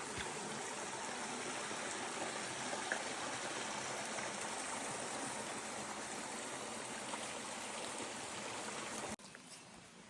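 Stream water running steadily. It cuts off suddenly about nine seconds in, leaving a much quieter background with a few faint clicks.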